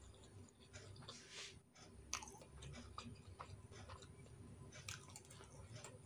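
A person chewing food close to the microphone: soft, irregular mouth sounds with scattered small clicks, one sharper click about two seconds in.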